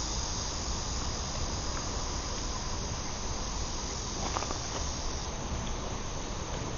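Crickets chirping in a steady high-pitched chorus that drops away a little past five seconds, with a few faint clicks about four seconds in.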